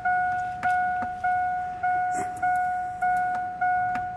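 A 2002 GMC Sierra's dashboard warning chime repeating steadily, a single electronic bong about every 0.6 seconds, each one fading before the next.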